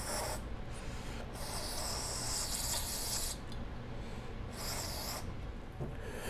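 Aerosol carburetor cleaner hissing through its thin extension straw as it is sprayed into a small-engine carburetor main jet to flush out leftover varnish goo: a hiss of about two seconds starting a second in, then a brief second spray near the end.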